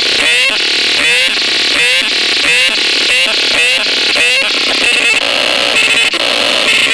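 Synthesizer playing a harsh electronic pattern: a short rising chirp repeating just under twice a second, switching to a different buzzing, stuttering texture about five seconds in. Thin and bright, with almost no bass.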